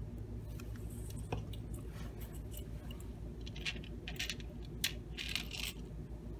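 Light clicks and short scratchy rustles of hands handling 3D-printed plastic parts, pressing a printed spring into its channel in the plastic box base, busiest in the second half. A steady low hum runs underneath.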